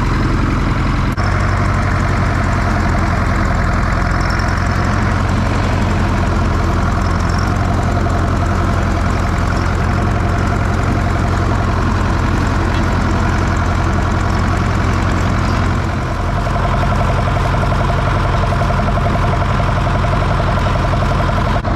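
Zetor 6711 tractor's diesel engine running steadily at low revs.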